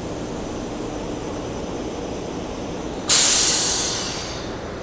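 A stationary SEPTA regional rail electric railcar humming steadily, then about three seconds in a sudden loud burst of compressed air hissing out of its pneumatic system, fading over a little more than a second.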